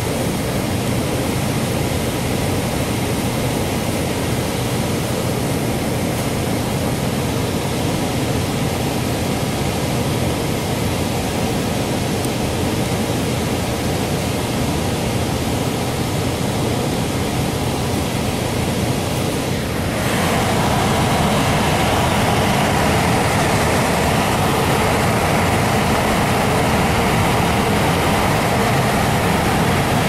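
Air handler running with its heat strips energized: a steady rush of blower air over a low hum. About twenty seconds in it steps up, louder and brighter.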